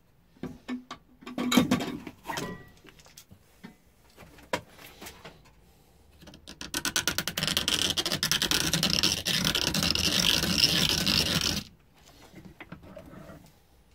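A junior hacksaw cutting through a thin metal selfie-stick tube clamped in a vise: about five seconds of fast rasping strokes that stop suddenly, after a few knocks and clicks as the tube is set up. The cut is hard going and comes out not quite straight.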